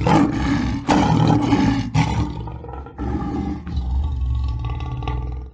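Tiger growling and roaring in several loud bouts one after another, with a deep rumble; it cuts off suddenly near the end.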